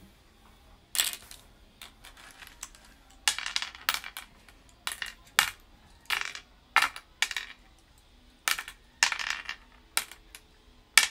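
Cowrie shells clicking and clattering as they are scooped up and dropped one by one into the pits of a wooden sungka board. About a dozen separate clicks and short rattles come at irregular intervals.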